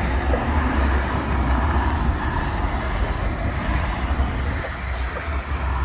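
Steady low rumbling background noise with a hiss above it and no distinct single event.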